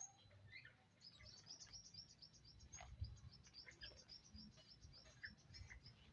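Faint bird chirping: a fast run of short, high, thin chirps, several a second, starting about a second in and stopping shortly before the end.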